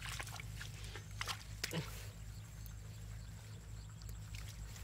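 Hands groping in a shallow muddy pool, giving a few short wet squelches and splashes, about three clear ones in the first two seconds and fainter ones after.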